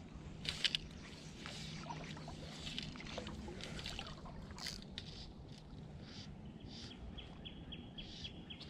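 Handling noise of a fly rod and line as line is pulled and stripped by hand: soft rustles and small clicks, with two louder clicks about half a second in. Near the end comes a run of fast, even ticks, about five a second.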